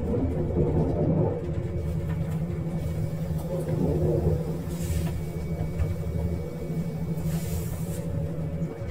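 Diesel railcar running, a steady low engine rumble heard from inside the train, with two short hisses about five seconds and seven and a half seconds in.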